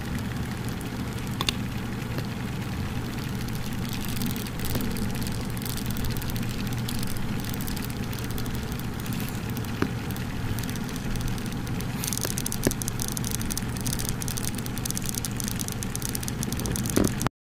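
Termites in a wall crevice, heard as a steady rustling crackle like lightly crumpled paper, over a low hum, with a few faint clicks. The sound cuts off suddenly right at the end.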